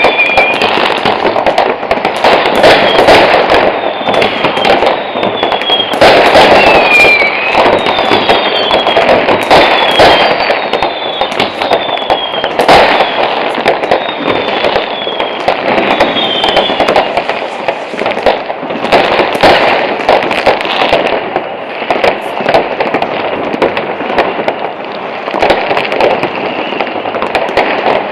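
Fireworks going off in great numbers: a dense, unbroken crackle of firecrackers with many sharp bangs. Over roughly the first half, whistling fireworks sound one after another, each whistle falling in pitch.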